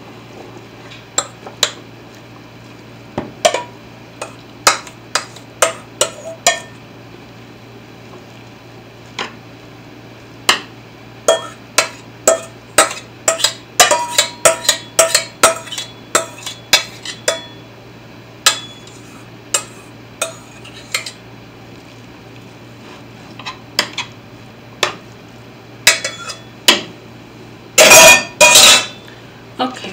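A utensil scraping and knocking against a stainless steel mixing bowl and a metal baking pan as stuffing is scooped from one into the other: a long run of sharp clinks and taps, thickest about halfway through and thinning out later. Near the end comes a loud rushing burst lasting about a second and a half.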